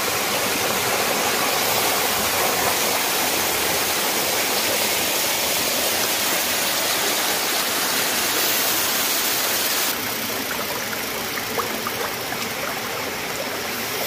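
Water of a small rocky waterfall rushing and splashing down a stone cascade, a steady full rush; it drops slightly in level about ten seconds in.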